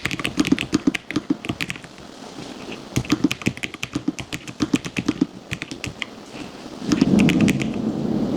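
Typing on a Lofree Flow low-profile mechanical keyboard: deep, thocky keystrokes in quick runs with short pauses between, growing denser and louder near the end.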